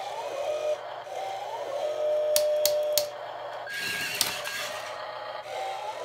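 An RC skid steer loader's built-in sound module playing a simulated engine sound through a small speaker: a steady buzzy hum that rises in pitch briefly when the controls are worked. A few sharp clicks come near the middle, followed by a short noisy whir as the loader moves.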